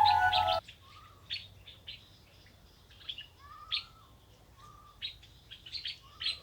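Music with flute-like tones cuts off just over half a second in, leaving scattered short bird chirps and calls.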